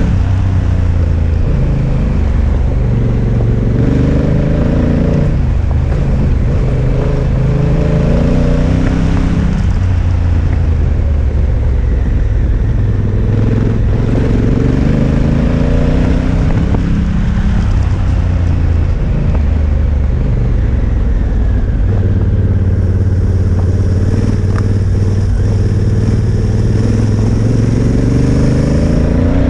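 Honda Africa Twin motorcycle's parallel-twin engine under way, its pitch repeatedly climbing under throttle and dropping back as the rider shifts or eases off.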